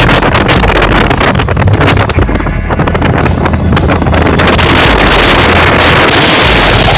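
Wind rushing over the microphone of a moving motorcycle, over the steady low running of a Royal Enfield Bullet's single-cylinder engine.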